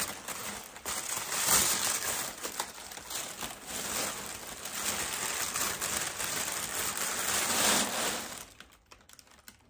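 Packaging crinkling and rustling as a body mist spray bottle is unwrapped from its foam mesh sleeve, uneven and continuous, stopping about eight and a half seconds in.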